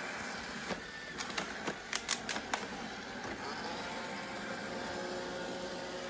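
Roomba robot vacuum running, its motor and brushes making a steady whirring noise on carpet. A quick run of sharp clicks and knocks comes in the first half.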